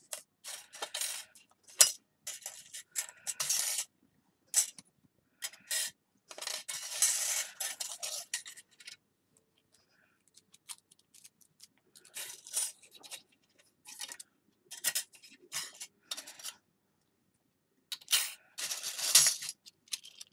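Thin iron filigree findings in an antique bronze finish clinking and scraping against each other as they are picked up and laid out, in irregular clicks and rustles with a pause about halfway through.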